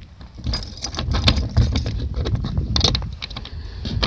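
Keys and a door latch clicking and rattling as the ice-fishing house door is worked open, over a low rumble of wind on the microphone.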